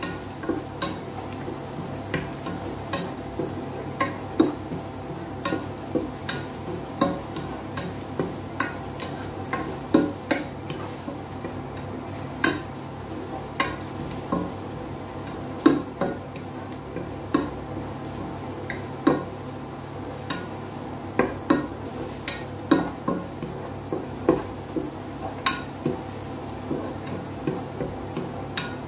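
Wooden spoon stirring onion and garlic sautéing in a pot, knocking against the pot in irregular taps about once a second, over a faint sizzle and a steady hum.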